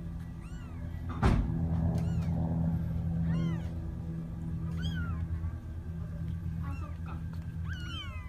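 A newborn kitten mewing over and over in short, high cries that rise and fall, about seven of them. A steady low hum runs underneath, and a single sharp knock comes about a second in.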